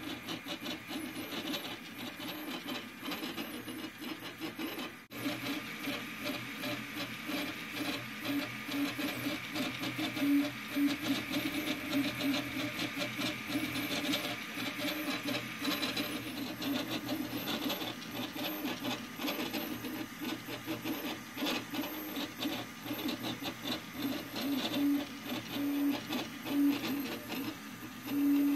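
A homemade 3D printer's stepper motors buzzing and whining in short, shifting tones as the print head moves through its print, with a few brief louder notes, over a steady hiss. The sound cuts out for an instant about five seconds in.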